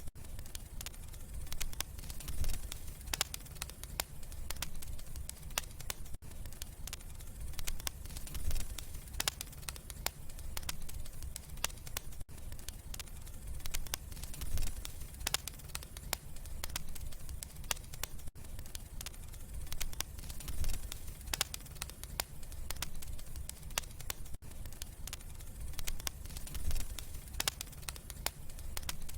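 Wood fire in a fireplace crackling, with many sharp pops and snaps over a steady low rumble of flame. There is a brief dropout about every six seconds.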